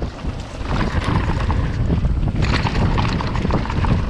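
Wind buffeting the microphone over the rumble and clatter of a mountain bike riding down a dirt downhill track, with many short rattling clicks from the bike.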